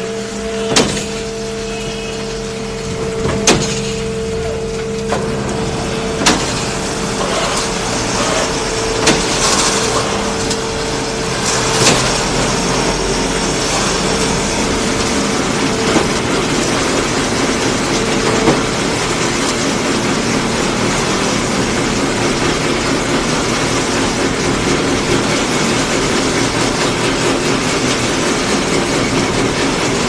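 Concrete mixer pump running with wet concrete in its mixing drum: a steady, loud machinery noise with a sharp knock every few seconds during the first twenty seconds.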